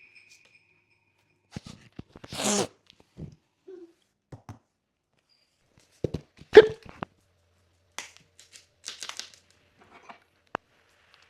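Intermittent handling noises: a short rustle about two and a half seconds in, a sharp knock a little past halfway that is the loudest sound, and scattered light clicks.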